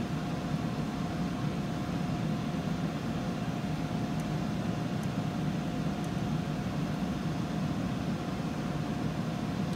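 Steady low hum of the Boeing 777 flight-deck trainer's equipment and ventilation, with a faint constant whine above it.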